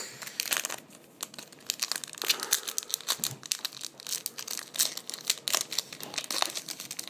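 Foil wrapper of a Pokémon TCG Plasma Blast booster pack crinkling as it is handled and torn open, making a rapid, irregular run of sharp crackles.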